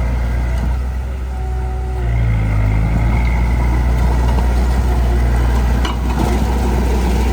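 Heavy diesel engine of earthmoving machinery running under load, easing off briefly and then revving up about two seconds in, with a single sharp click near the end.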